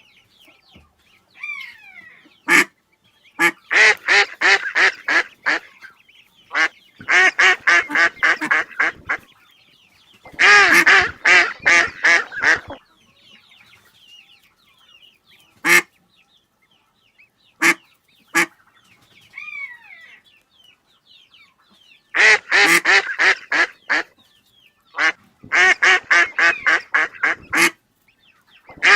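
Ducks quacking in rapid runs of about five quacks a second, coming in several separate bursts with single quacks between them.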